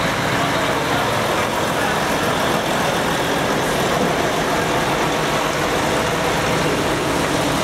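Diesel engines of heavy trucks, a Volvo tractor unit followed by a Mercedes-Benz truck, running at low speed as they pull slowly past. The sound is a steady, even engine noise with no single event standing out.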